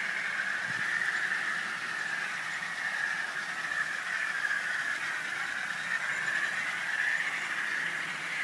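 OO gauge model trains running on garden track: a steady high whine from their motors and wheels that slowly wavers up and down in pitch, over a faint hiss.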